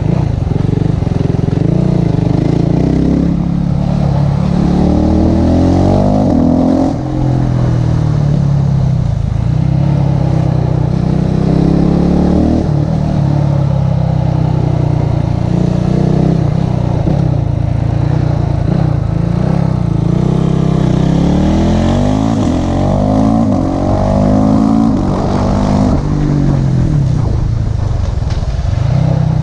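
KTM motorcycle engine heard from on board while riding, its revs climbing and dropping back several times as it accelerates and changes gear.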